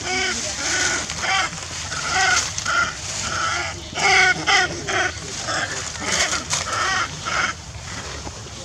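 Macaque calling in a rapid series of short, high, wavering squeals and screams, two or three a second, with a few brief pauses.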